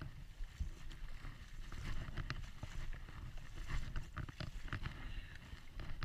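Flowing river water with wind rumbling on the microphone, and scattered short ticks.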